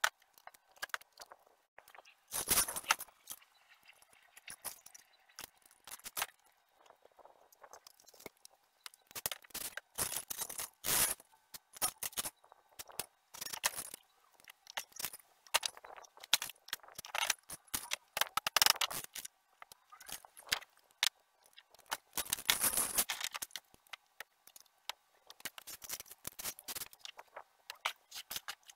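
Small hand tools and a light metal chain clicking, scraping and rattling in irregular bursts as metal hardware is worked by hand, with a few louder scrapes.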